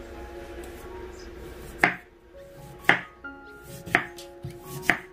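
Kitchen knife chopping salt-softened kimchi vegetables on a cutting board: four sharp cuts about a second apart, starting about two seconds in. Background music with sustained notes plays throughout.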